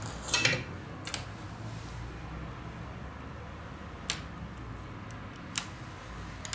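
A few sharp clicks and taps of a plastic spudger and hand tools working on an opened smartphone, over a steady low hum. There is a small cluster of clicks at the start, then single clicks spaced out, with the last near the end.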